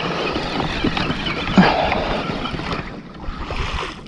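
Water rushing and splashing along a kayak's plastic hull as a hooked tuna tows it, with wind buffeting the microphone. There is a brief louder sound about one and a half seconds in, and the rush eases a little near the end.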